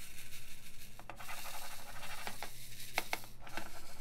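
Black resin diamond painting drills rattling and sliding in a 3D-printed plastic drill tray as it is shaken, with a few sharper clicks partway through. The shaking lines the drills up in rows along the tray's ridges.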